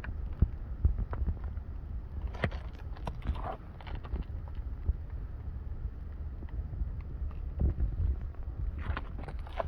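Wind rumbling on the microphone, with scattered light taps and knocks at irregular intervals, typical of asphalt roof shingles being handled.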